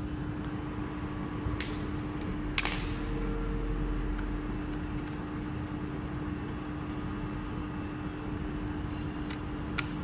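Small plastic cable plugs and a jack plug being handled and fitted to a smoke detector: a few small clicks and taps, the sharpest about two and a half seconds in, over a steady low hum.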